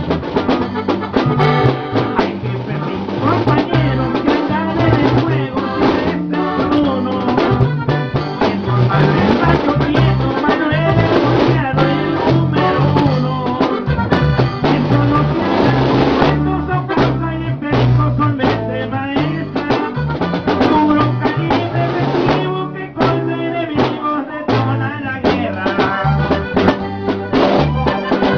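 Upbeat band music with a drum kit, horns and a bass line on a steady beat.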